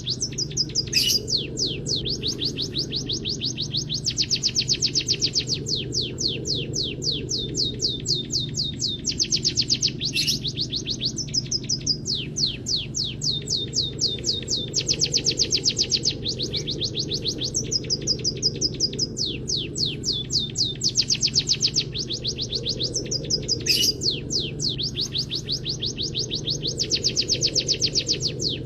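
Caged munia (emprit kaji / peking) singing a canary-style song: continuous fast trills of short downward-sliding high notes, changing pitch from phrase to phrase. A steady low hum runs underneath.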